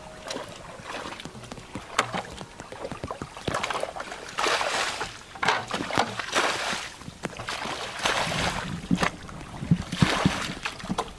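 Shallow muddy water splashing and sloshing as children wade through it and push a plastic bucket through the water, in irregular bursts.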